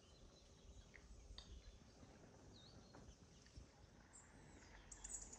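Near silence of open countryside: a faint low wind rumble with a few soft, short bird chirps, and a short run of high clicks near the end.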